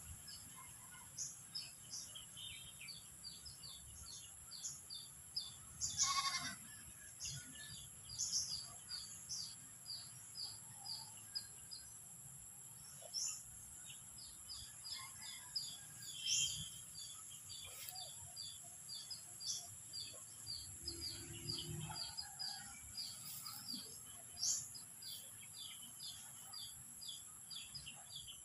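Rapid small bird chirps over a steady high-pitched drone, with a few louder calls; the loudest comes about six seconds in.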